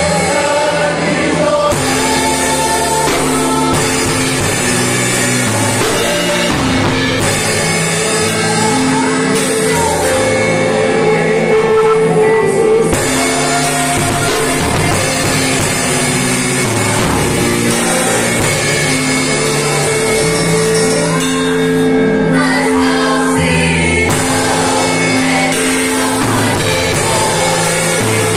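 Live church band playing a gospel song: a drum kit with cymbals and a keyboard, with singing.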